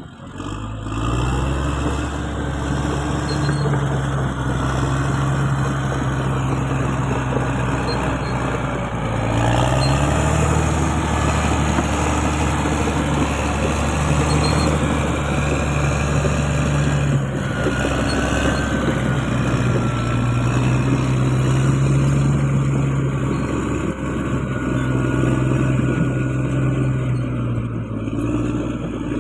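Bulldozer's diesel engine running steadily under load. It speeds up about a third of the way in and settles back down a few seconds later.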